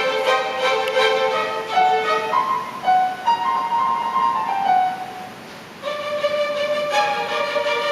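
Youth orchestra playing classical music live, with violins leading over held notes. It drops quiet briefly about five seconds in, then the orchestra comes back in louder.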